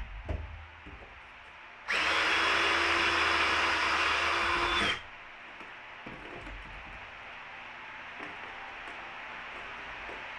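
Power drill running steadily for about three seconds, starting about two seconds in, while unscrewing rusty screws from a bus floor.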